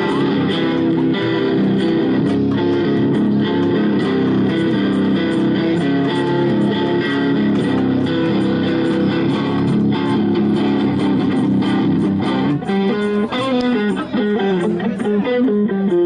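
Double-neck electric guitar played in a blues-rock style, chords ringing steadily, then about twelve seconds in a lead line of single notes stepping downward.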